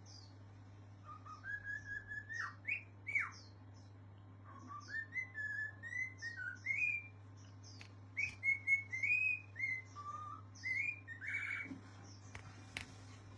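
Parrot whistling a run of melodic notes that slide up and down, in three phrases with short pauses between them.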